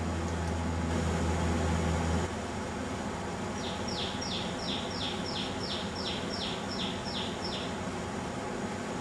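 Common tailorbird singing a run of about a dozen sharp repeated notes, each sliding down in pitch, about three a second. Before the song, a steady low hum cuts off suddenly about two seconds in.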